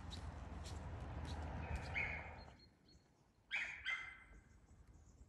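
Footsteps about twice a second over a steady low outdoor rumble, which drops away suddenly a little past halfway. Then come two short, sharp animal calls close together and faint bird chirps.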